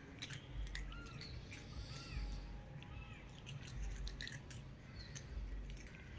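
A crowd of cats eating, their chewing making many quick, crisp clicks. A bird chirps about six times with short arched calls near the start, over an intermittent low rumble.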